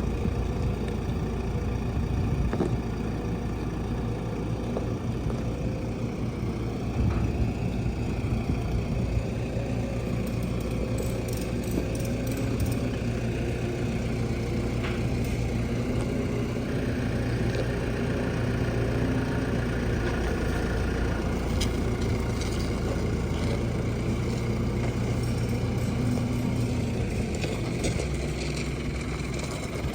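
Engine of heavy farm machinery running steadily, its speed wavering slightly up and down, with a higher whine for a few seconds in the middle.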